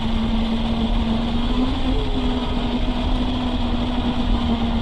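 Radio-controlled model truck driving along, giving a steady, even-pitched hum over a rough rumbling noise.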